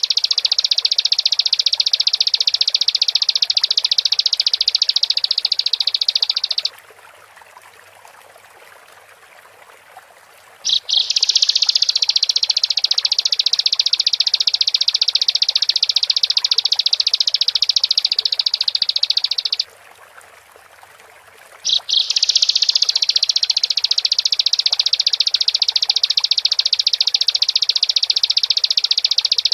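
Bar-winged prinia (ciblek) singing its vigorous 'gacor' song in long, fast, high-pitched trills. It breaks off twice for a few seconds before starting again.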